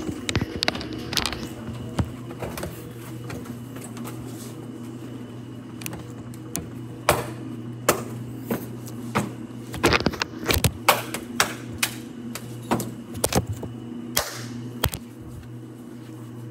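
Irregular sharp clicks and knocks, a quick cluster of them about ten seconds in, over a steady low hum.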